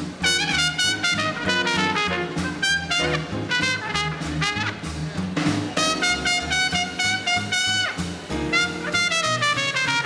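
Small-group swing band playing live: trumpet carrying the melody over piano and upright bass.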